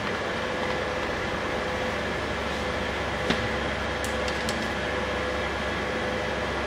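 Steady mechanical hum and hiss of background machinery or ventilation, with a faint steady tone. One light click a little over three seconds in, and a few faint ticks soon after.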